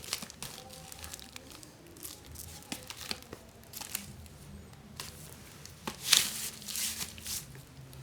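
Packaging crinkling and rustling as the boxed fiber optic cable reel is handled, with scattered clicks and a louder burst of crinkling about six seconds in.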